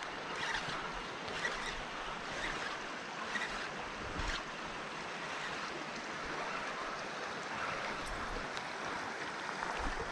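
Steady rush of flowing river water, with faint ticks about once a second.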